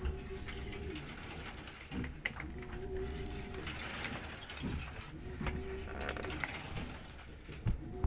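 Washing machine agitating: the motor runs in strokes of about a second, one every two and a half to three seconds, each just after a click, over a steady low rumble.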